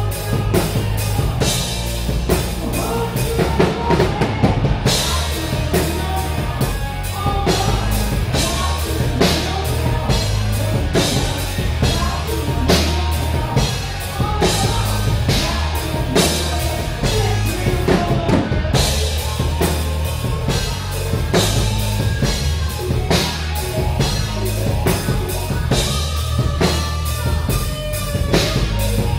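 Rock band playing live and loud: drum kit hitting several times a second over a heavy bass line.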